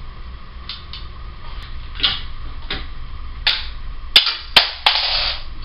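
Sharp clicks and taps of screws and metal hardware as a ceiling fan blade is fastened to the motor housing by hand: about six clicks, three of them close together near the end.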